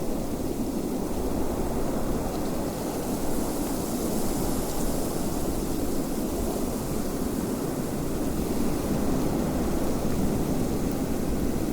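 Steady low rushing of wind, with a fainter high hiss that swells a little in the middle.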